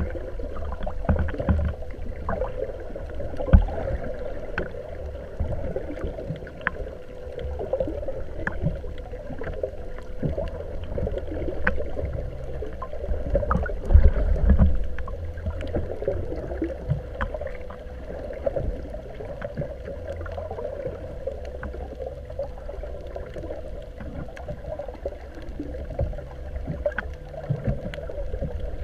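Water sloshing and gurgling against a small boat, with scattered light knocks and a low rumble. A faint steady hum runs underneath.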